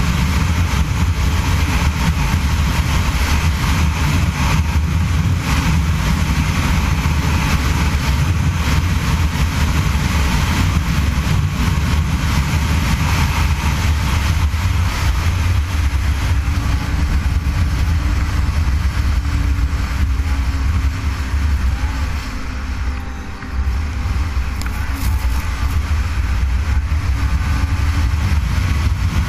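Snowmobile engine running steadily at speed, with a brief dip in loudness a little past the middle.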